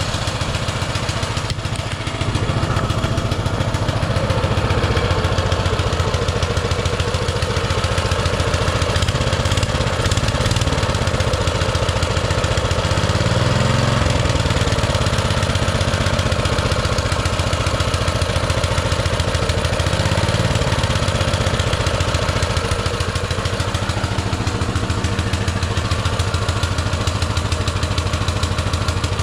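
Baja Warrior mini bike's single-cylinder four-stroke engine running at a fast idle on choke, with a brief rise in speed about halfway through and another a few seconds later. The idle is too high, and the engine will not yet idle with the choke off.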